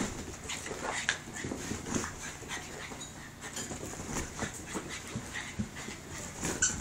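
Six-month-old Bugg puppy (Boston terrier–pug cross) panting and giving short whimpers while playing wildly close to the phone, with irregular scuffs and knocks.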